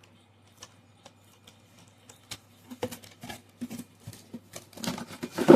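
Hot Wheels premium packaging being opened by hand: scattered clicks and crinkles of cardboard and plastic blister. They start sparse after a quiet moment and grow denser and louder near the end.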